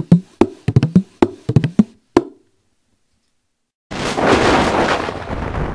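Hollow wooden percussion, a wood block or small drum, struck about ten times in an uneven rhythm over two seconds. After a short silence, a loud rushing noise starts suddenly about four seconds in and slowly fades.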